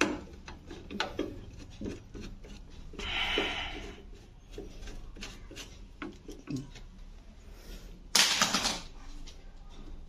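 Sheet-metal top panel of a washing machine being handled and worked loose: scattered clicks and knocks, a scraping rub about three seconds in, and a louder, brief metal scrape a little past eight seconds.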